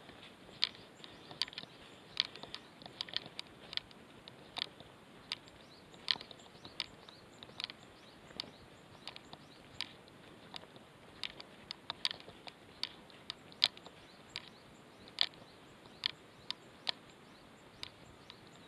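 Footsteps crunching on loose stony soil and dry twigs: sharp, irregular clicks, about two a second.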